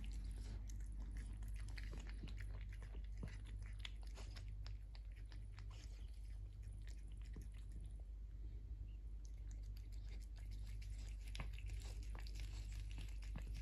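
A cat chewing and lapping wet food from a small plastic tray: a run of quick, irregular wet clicks that thin out for a few seconds in the middle.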